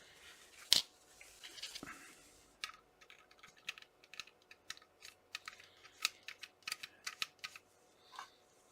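Light, irregular clicks and taps of small parts being handled as the grip screw on an air pistol is fitted, with one sharper click about a second in and a run of several clicks a second through the middle.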